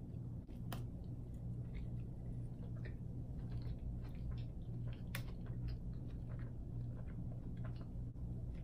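A person chewing a mouthful of cheeseburger, with many small wet mouth clicks and smacks throughout, over a steady low hum.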